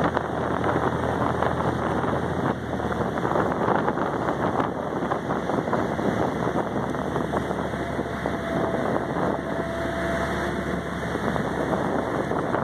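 Ferry underway: a steady low engine drone beneath the rush of its wake churning along the hull, with wind buffeting the microphone.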